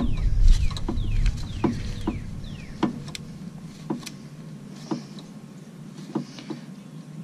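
New oil filter being spun onto its mount by hand: a run of light clicks with short, falling squeaks between them, the squeaks mostly in the first three seconds. Wind rumbles on the microphone for the first few seconds.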